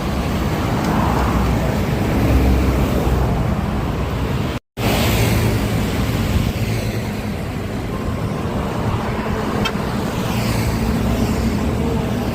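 Road traffic: large vehicles passing one after another with a steady engine rumble and the rush of tyres, swelling as each goes by. The sound drops out completely for a moment about four and a half seconds in.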